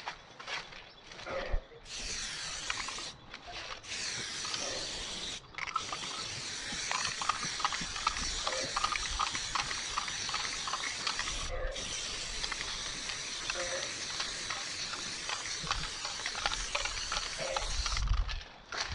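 Aerosol spray paint can spraying: a few short hisses in the first seconds, then a long steady spray with one brief pause midway.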